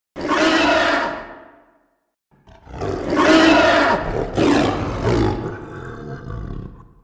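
Film cave troll creature roaring, a designed monster-vocal sound effect: a short roar that fades away, then after a pause a longer roar with a brief break partway through, trailing off.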